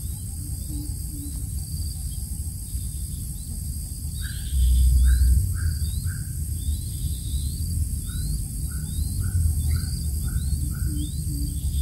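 Bird calls: two runs of short, evenly spaced notes, about four and then six, over thin high rising chirps that repeat throughout. A low rumble runs underneath and swells briefly about four and a half seconds in.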